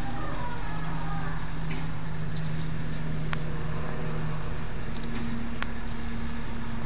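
A motor running steadily with a low hum, with a few faint clicks over it.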